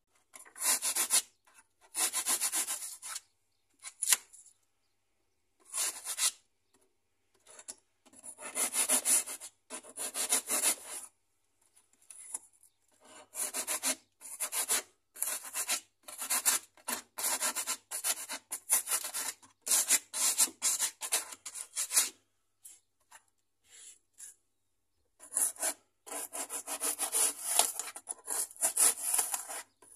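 Junior hacksaw sawing into expanding foam, in runs of quick back-and-forth strokes broken by short pauses.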